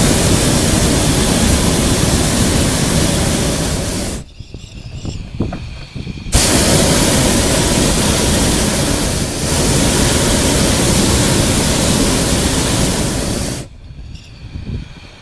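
Hot air balloon's propane burner firing in two long blasts, the first about five seconds, the second about seven, with a short break between, heating the air in the envelope.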